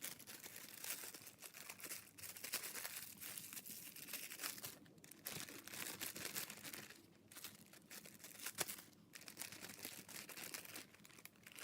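Plastic zip-top bag crinkling as it is handled, in irregular crackly bursts with a few short pauses.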